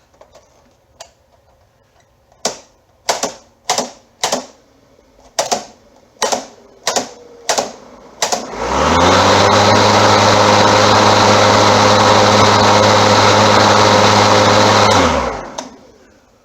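A string of about nine clicks, then an electric lawn mower's motor and blade spin up quickly, run at a steady pitch for about six seconds and wind down when switched off.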